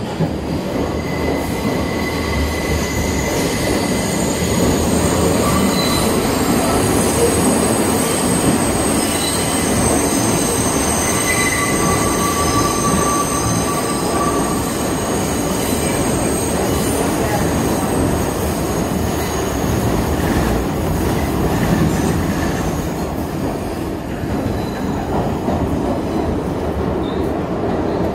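New York City subway 3 train running at speed through a tunnel, heard from inside the car: a steady loud rumble of wheels on rails. Thin, high wheel squeals come and go over roughly the first half.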